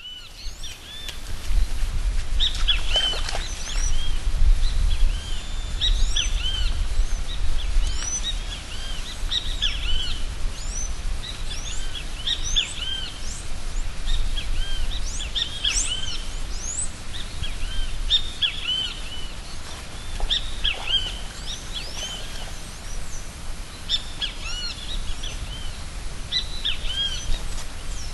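Many birds calling together: a dense chorus of short chirps and whistles that slide up and down in pitch. A low rumble runs underneath, strongest in the first ten seconds.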